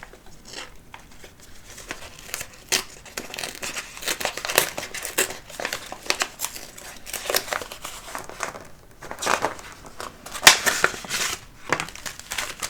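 Packaging of a pumpkin spice tea being handled and opened: irregular crinkling with some tearing, starting about two seconds in.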